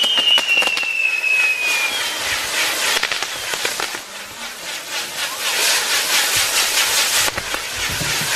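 Fireworks on a castillo tower going off: a whistle falling in pitch for about the first two seconds, then a continuous fizzing crackle with many sharp cracks, dipping briefly about halfway through.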